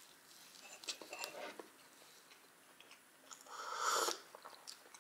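Close mouth sounds of chewing a mouthful of pancake, with soft wet clicks, then a sip of instant coffee from a mug about three and a half seconds in.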